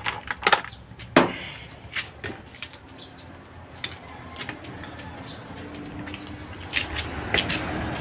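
Sharp knocks and clatter of tools and metal being shifted on a cluttered workbench, loudest in the first second, followed by lighter handling knocks.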